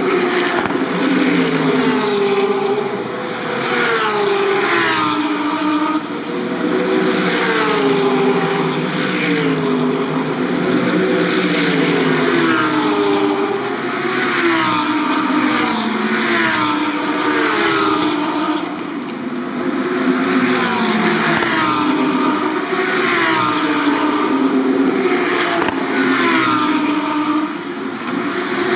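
A line of GT3 race cars passing one after another through a corner, engine notes falling and rising again and again through the gear changes, several cars overlapping with only brief lulls between them.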